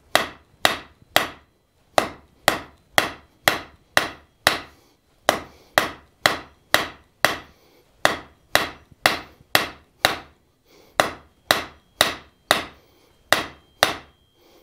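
Blacksmith's hand hammer striking a red-hot mild steel bar on an anvil, about two sharp blows a second in short runs with brief pauses, roughing out a dull tapered point.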